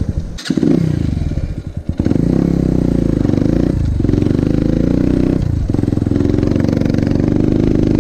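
A MiniRocket Motors 150cc pit bike's engine running under the rider, rising and falling in pitch as the throttle is worked, with short dips near the start and about four and five and a half seconds in.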